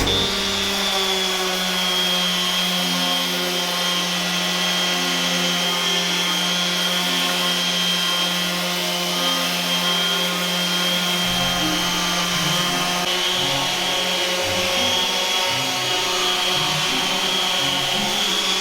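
Electric power tool motor, most likely a sander on the tabletop, running steadily with a high whine and a low drone.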